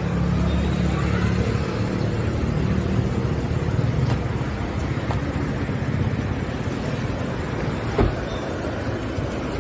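Street traffic noise with a car engine hum that fades over the first few seconds, and a single short knock about eight seconds in.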